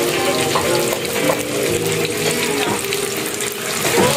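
Flour-coated chicken intestines (isaw) deep-frying in a wok of hot oil, the oil bubbling and sizzling steadily near the end of cooking.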